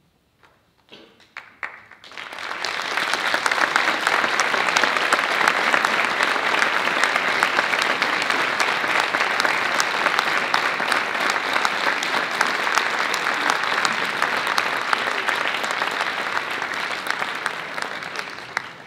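Audience applauding: a few scattered claps, then full applause that starts about two seconds in, holds steady and eases off slightly near the end.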